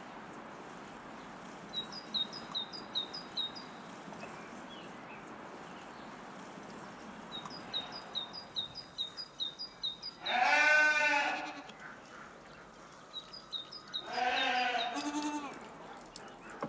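A goat bleats twice, one long call past the middle and a shorter one near the end; the first is the loudest sound. Between them a small bird sings three runs of quick, high chirps over a steady outdoor hiss.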